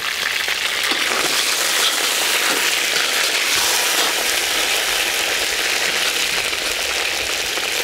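Chicken drumsticks sizzling steadily in hot oil in a cast-iron kazan, as they are turned with tongs.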